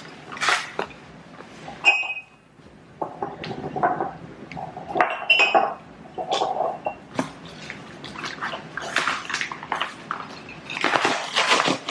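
Porcelain dishes being unpacked and set down on a counter: two ringing clinks, about two and five seconds in, amid rustling and scraping of packing paper and handling noise.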